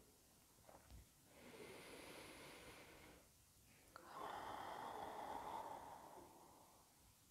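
A woman's slow, deliberate yoga breathing: a soft breath in through the nose, then a louder breath out through the mouth.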